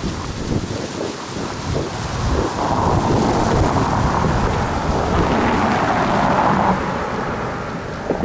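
Road traffic passing, with a car's tyre noise swelling from about two and a half seconds in and dropping away near the end. Under it runs a gusty rumble of wind on the microphone.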